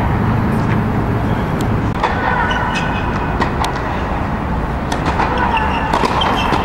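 Steady rumble and hiss of air blowers in an air-supported tennis dome, with a few scattered sharp knocks of tennis balls bouncing and being struck.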